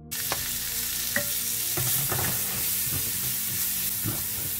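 Chopped shallot frying in hot butter and garlic in a metal frying pan: a loud, steady sizzle that starts suddenly as the onion goes in, with a wooden spoon stirring and knocking against the pan now and then.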